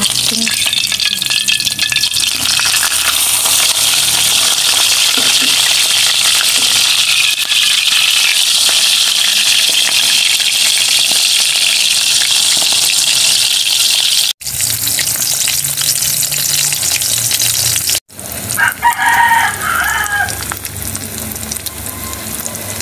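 Daing na bangus (split, marinated milkfish) sizzling steadily as it fries in oil in a wok, turned now and then with a metal spatula; the sizzle breaks off abruptly twice. Near the end a rooster crows once.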